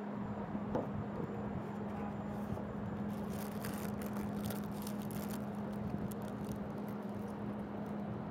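Steady city traffic noise with a constant low hum underneath, and light clicks and rustles between about three and five and a half seconds in.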